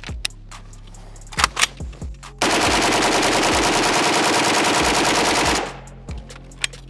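Pioneer Arms 5.56 AK rifle firing full auto: a whole 30-round magazine emptied in one continuous burst of about three seconds that cuts off abruptly. Two sharp clacks come a second or so before the burst.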